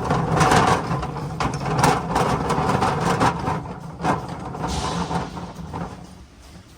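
A run of knocks, scrapes and clatter from tools and parts being handled during repair work, over a steady low hum. It eases off near the end.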